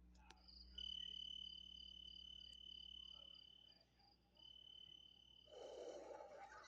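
Faint cricket trilling: a steady high trill that breaks off briefly about four seconds in and resumes, with a short burst of rustling noise near the end.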